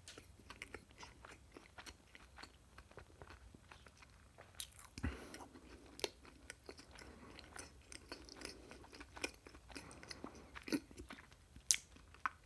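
Close-miked chewing and crunching of food: a steady patter of small mouth clicks with a few louder, sharper crunches.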